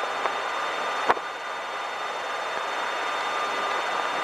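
Steady rushing flight-deck noise of a Boeing 767-300ER in descent, with a faint steady whine. A single sharp click comes about a second in.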